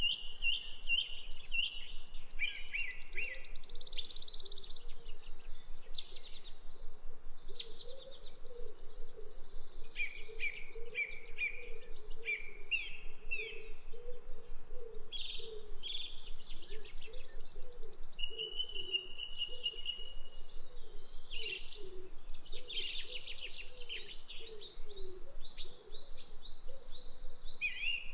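Several small birds chirping and trilling over one another, with short high calls coming one after another and a longer steady high note about two-thirds of the way through. Underneath, a fainter low sound repeats about once a second.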